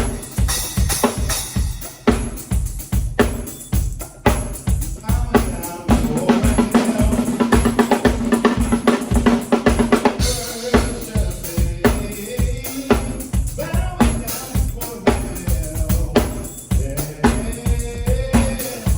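Music led by a drum kit: fast, steady bass-drum and snare strikes throughout, with a held low pitched note under the beat in the middle stretch.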